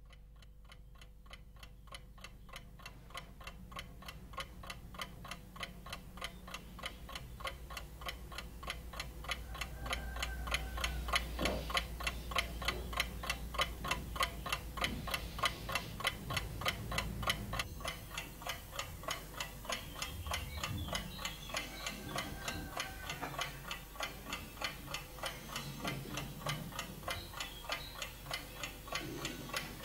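Mechanical twin-bell alarm clock ticking steadily and quickly, growing louder over the first ten seconds or so.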